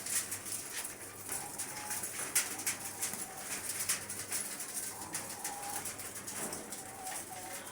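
Pied diamond doves cooing, a few short soft coos among many brief sharp clicks.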